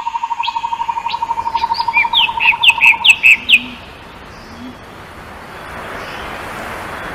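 Songbirds singing: a fast, even trill and a quick series of short falling chirps, which stop about three and a half seconds in. An outdoor hiss follows and slowly swells.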